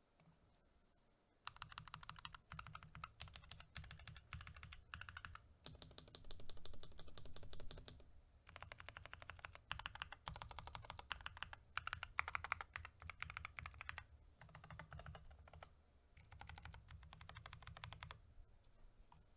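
Mechanical keyboard being typed on in quick runs of keystrokes, broken by short pauses. The stretch from about six to eight seconds in is louder.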